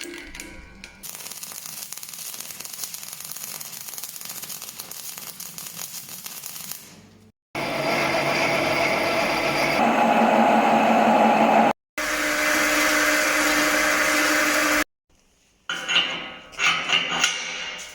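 Power tools and machinery running in several short clips cut one after another, each a steady grinding noise, followed by a few irregular knocks near the end.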